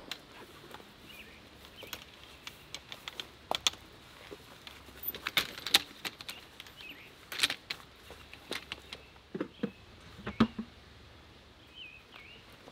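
Clicks, knocks and clinks of a Snow Peak folding chair's aluminium frame being handled and unfolded, in scattered bursts. Small birds chirp now and then in the background.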